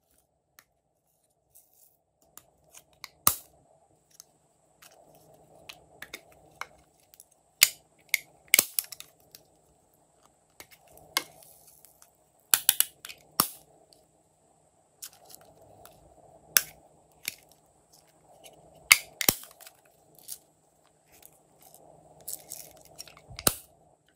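Small plastic cases clicking open and snapping shut, with sharp clicks scattered irregularly, and sequins and glitter shaken out of them into glass trays. A faint steady hum runs underneath.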